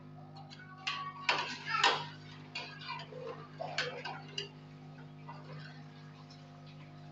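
A run of irregular sharp clicks and knocks over a steady low hum, dying away about halfway through and leaving only the hum.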